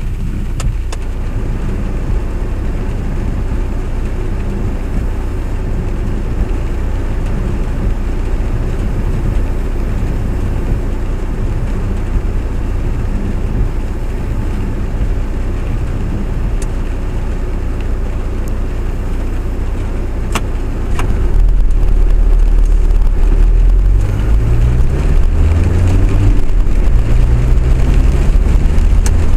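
Steady low running rumble of a moving vehicle heard from on board, growing louder about two-thirds of the way through as it picks up speed, with a motor tone rising in pitch in steps.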